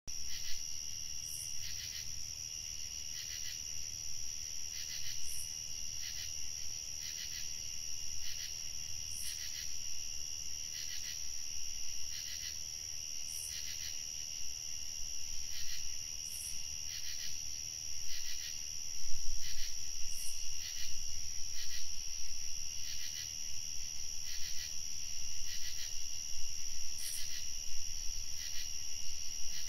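Evening chorus of crickets: a continuous high trill with shorter chirps repeating about once a second.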